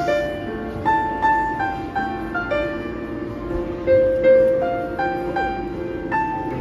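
Background solo piano music: a gentle melody of single notes stepping up and down over a soft sustained accompaniment.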